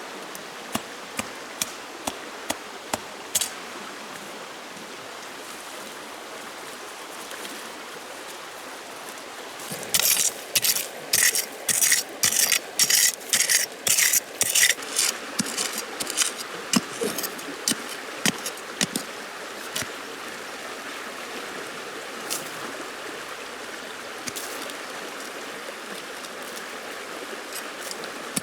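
A quick run of sharp, evenly spaced strokes, about two or three a second, lasting about five seconds in the middle, over a steady rushing hiss like flowing water. Scattered light clicks and taps come before and after the run.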